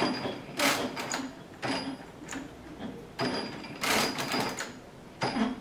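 Metal parts of a 1918 Brunsviga compound calculator's drive mechanism clicking and clattering as it is moved by hand: pawls, cams and clutch parts snapping into place in irregular bursts, about one every half second to second.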